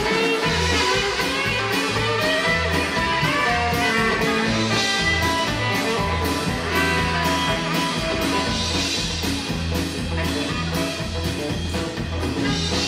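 Live rockabilly band playing an instrumental break: a saxophone carries the melody over strummed acoustic guitar, a walking bass line and steady drums.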